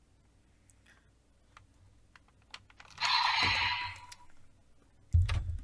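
Small plastic clicks of toy buckles being handled, then about three seconds in a short, loud electronic sound effect from the toy belt's speaker, followed by more clicks and a low thump about five seconds in.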